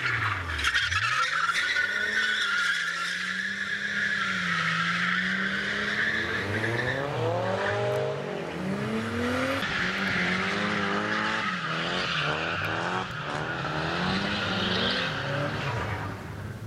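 Drift cars sliding through corners: tyres screeching continuously while the engines rev up and down over and over.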